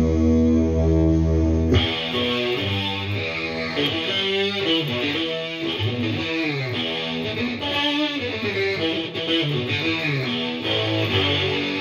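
Electric guitar played through a Digitech Dirty Robot synth pedal, giving synth-like tones. A held low note gives way about two seconds in to a run of shorter notes with a sweeping, swirling filter, and the run settles back onto a held low note near the end.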